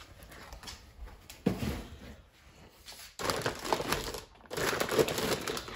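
Packing paper and plastic wrap crinkling and rustling as a wrapped part is handled and pulled from its box, in two stretches in the second half, after a single light knock about one and a half seconds in.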